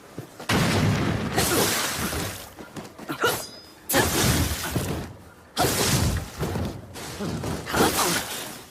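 Naginata combat sound effects: about four separate sudden crashing impacts, each fading over a second or two, the second with a short metallic ring before it.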